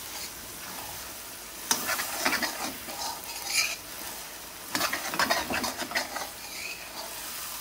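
Diced onions sizzling in hot oil in a karahi, caramelizing, while a metal spoon stirs and scrapes the pan. The scraping comes in two short spells of clattering strokes, about two seconds in and again about five seconds in.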